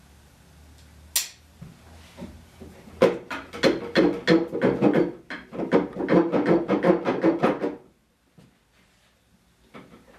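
Wooden Windsor chair spindle creaking and squeaking as it is worked back and forth down into a tight hole in the seat, a quick run of about four or five strokes a second. It starts about three seconds in and stops a few seconds later.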